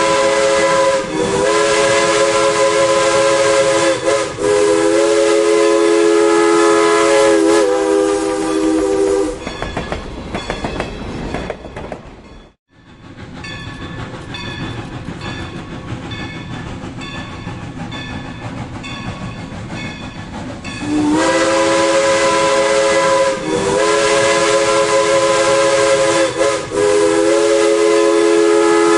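Steam locomotive's chime whistle blowing a chord of several notes in long blasts, with short breaks between them. Between the blasts the train runs on with a noisy rumble.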